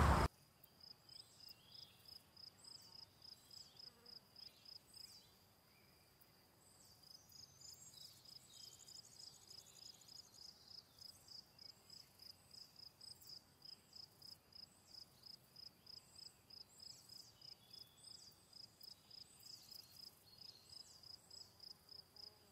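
Faint, regular insect chirping, about three high chirps a second, with a pause of about two seconds around five seconds in.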